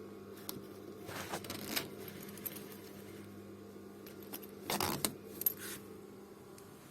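Fabric washing-machine cover being handled: rustling with small clicks, in two busier stretches about a second in and around the five-second mark, over a faint steady hum.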